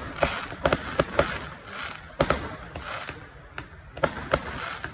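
Aerial fireworks bursting: a string of sharp bangs and pops at irregular intervals, some in quick clusters, with crackling between them as the shells scatter gold crackling stars.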